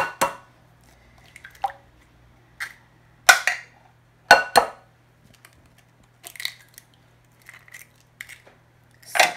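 Raw eggs being cracked open: a few sharp knocks of eggshell against a hard edge, the loudest two a second apart, with fainter crackling ticks of shell being pulled apart.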